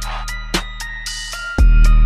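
Background music: an electronic beat with sharp, evenly spaced percussion hits over held tones, and a deep bass coming in strongly about a second and a half in.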